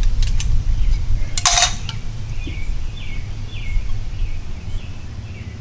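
A knife slitting the sheathing of Romex cable: a few light clicks, then one short, sharp scrape about a second and a half in, over a steady low rumble. A bird chirps repeatedly, about two calls a second, through the second half.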